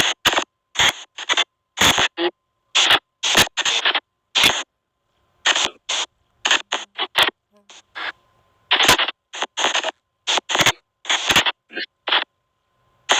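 SP White Noise Box ghost-box app sweeping: short, choppy bursts of hiss and clipped sound fragments, a few a second at an uneven rhythm, with brief silences between.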